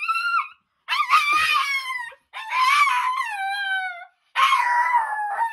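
Small dog howling in long, high calls, three in a row after the tail of an earlier one, each falling in pitch at its end.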